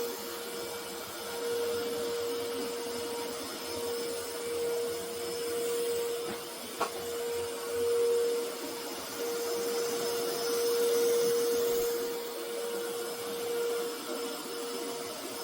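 eufy X10 Pro Omni robot vacuum running: a steady motor hum over the hiss of suction, rising and falling in level, with a single sharp click about seven seconds in.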